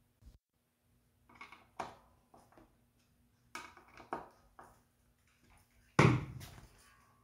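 Light clicks and scrapes of a small tool working the neck-plate micro-tilt adjustment on a Stratocaster, then about six seconds in a single loud knock that fades quickly, as a tool is set down on the wooden workbench.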